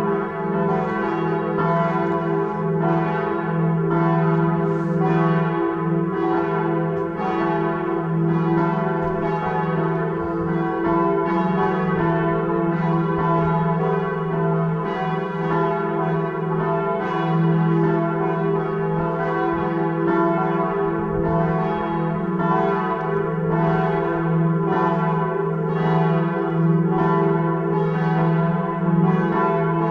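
Several church bells ringing together, their strokes falling unevenly about one to two a second and overlapping over a continuous ringing tone.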